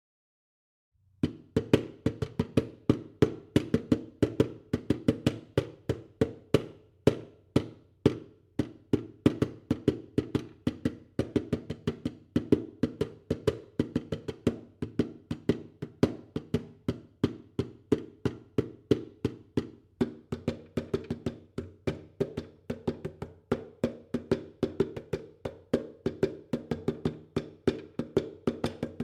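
Bongo drums played by hand: a continuous run of quick, sharp strokes at a steady pulse, starting about a second in after silence.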